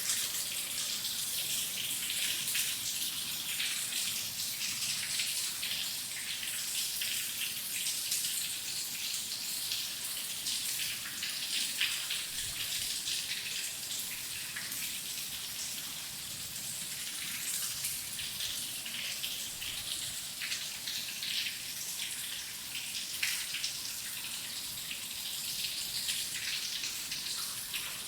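Steady heavy rain falling, a dense patter of drops with a bright hiss.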